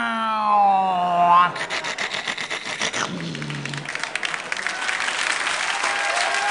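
A man's voice imitating an aeroplane with a long falling drone, ending about a second and a half in. Then a studio audience applauds.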